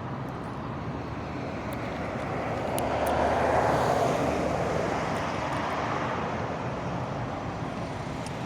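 A vehicle passing by: a steady rush of engine and road noise that swells to a peak about three to four seconds in, then slowly fades away.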